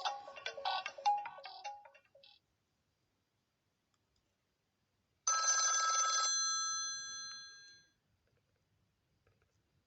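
An HTC Wildfire S phone's speaker playing its built-in ringtones. A melodic tune of short, bright notes ends about two seconds in. After a pause, a single bright chime-like strike rings out about five seconds in and fades over two to three seconds.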